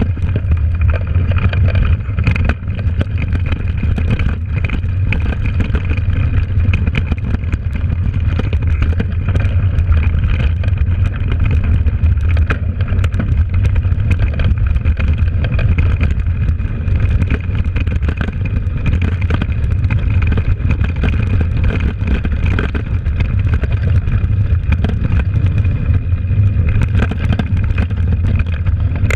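Mountain bike rolling fast down a dirt trail, heard from a camera on the bike: a steady, loud rumble of tyres and air, with frequent clicks and knocks as the bike goes over bumps.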